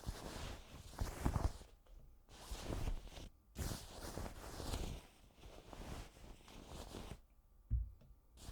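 Blankets being handled, a run of irregular fabric rustles and swishes of cloth rubbing and shifting, with a short soft thump near the end.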